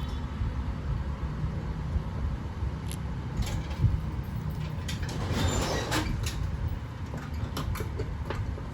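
Sulcata tortoise biting and crunching its food: scattered sharp crunches, with a longer, louder one about five seconds in, over a steady low rumble.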